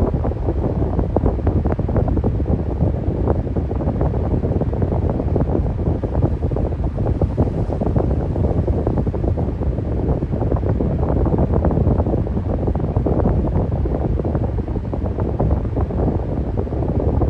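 Electric fan running steadily: a low, continuous rush of air with a fast, uneven flutter, as if the airflow is buffeting the microphone.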